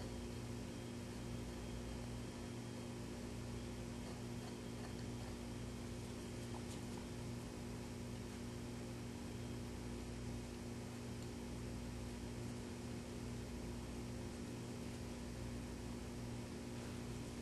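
Steady electrical hum with an even hiss under it, unchanging throughout.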